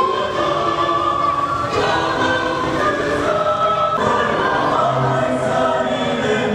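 A choir singing, with several voices holding long notes together. The sound changes abruptly about four seconds in, at an edit.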